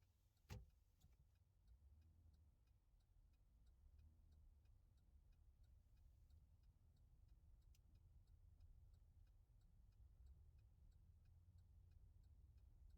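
Near silence: a faint low rumble with faint, evenly spaced ticking, and one sharp click about half a second in.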